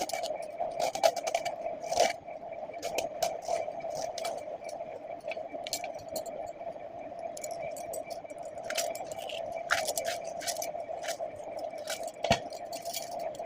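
Kitchen utensils scraping and clicking irregularly over a steady hum, the sounds of preparing or cooking vegetables.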